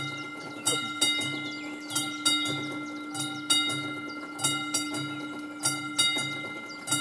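Electric bell of an AŽD 71 level-crossing warning signal ringing. It gives two quick strikes about every 1.2 seconds, and each pair rings on. The crossing is active, warning that a train is approaching.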